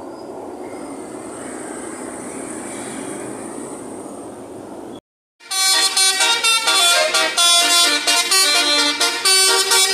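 Street traffic noise, then after a brief cut about halfway, a loud basuri musical air horn on a vehicle plays a quick melody of changing tones.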